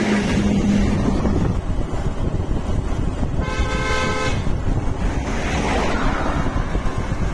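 Steady wind and road rumble of a vehicle moving along a highway, with a single vehicle horn sounding for about a second midway. A whoosh of another vehicle going by swells up a little later.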